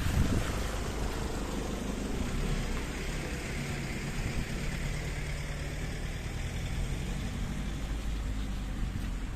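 An engine running steadily at a low pitch, with wind buffeting the microphone.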